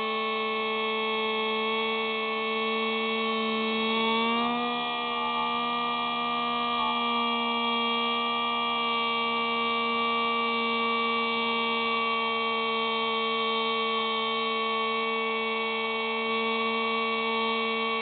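Electric motor and propeller of a Hubsan Spy Hawk RC plane in flight, heard from its onboard camera: a steady high whine. The pitch rises briefly about four seconds in, then holds steady.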